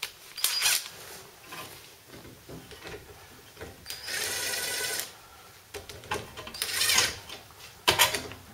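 Cordless Makita impact driver spinning nuts onto a VW T3 radius rod's mounting bolts in three bursts, the longest about a second, run up only loosely and not tightened, with knocks of parts being handled.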